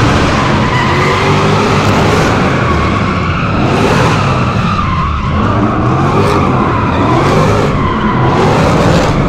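V8 drift car sliding, its engine held high and rising and falling in pitch while the tyres squeal continuously.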